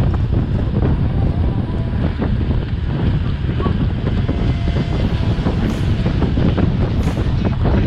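Wind buffeting the microphone of an on-board camera while cycling at speed: a steady, loud, low rumble.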